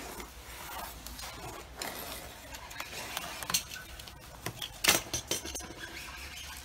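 Utility knife trimming the overhang of freshly glued edge banding along a board's edge: scraping strokes and small clicks, with a sharp knock about five seconds in.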